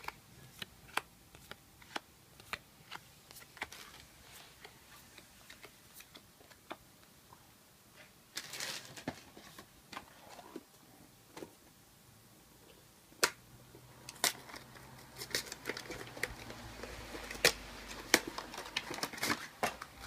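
Trading cards handled and flipped through, giving a run of light clicks and snaps. A brief rustle comes about eight seconds in, and denser crinkling and rustling of packaging fills the last several seconds.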